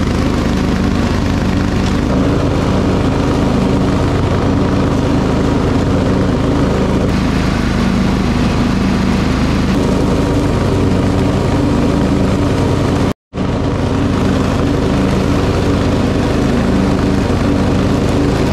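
Briggs & Stratton riding lawn mower engine running steadily under load with the blades cutting tall grass. The sound drops out for an instant about thirteen seconds in.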